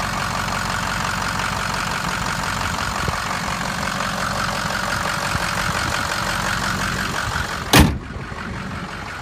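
Ford 6.0L Powerstroke turbo diesel V8 idling steadily, heard under the open hood. Near the end the hood slams shut with a loud bang, and the idle then sounds muffled.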